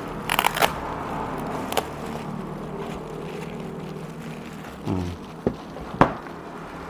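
Hands working on a new motorcycle ECM: scattered sharp clicks and crackles, a cluster of them about half a second in and a loud single click about six seconds in, over a steady low hum.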